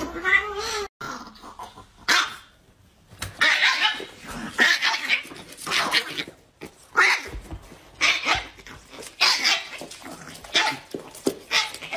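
A cat's meow trails off at the very start. After a break, a dog barks in short repeated barks, roughly one a second, with some growling.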